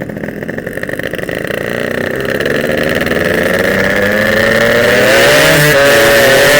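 Yamaha RX-King single-cylinder two-stroke motorcycle engine accelerating hard, its pitch climbing steadily as it grows louder, with a brief dip in pitch about five and a half seconds in.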